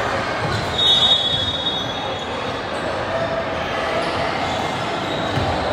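Gym noise during an indoor volleyball match: ball and court sounds over a steady murmur of voices. About a second in there is a short, high-pitched squeak.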